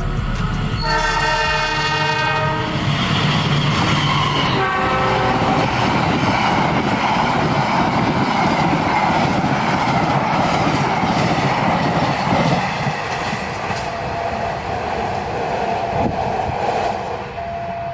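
Diesel locomotive's horn sounding a long blast and then a short one, followed by a diesel-hauled passenger train running past at speed with the steady rush and clatter of wheels on the rails. The noise drops away near the end.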